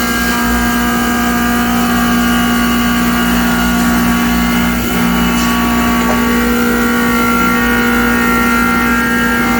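CNC grinding and deburring machine running: a steady motor hum with several high, even whining tones held throughout.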